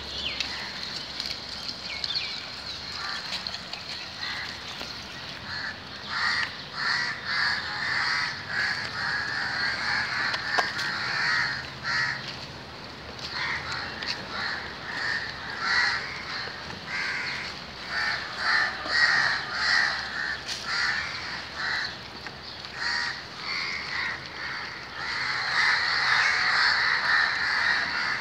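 A group of pigs feeding on scattered food scraps, with repeated short squeals and grunts coming in clusters, busiest near the end.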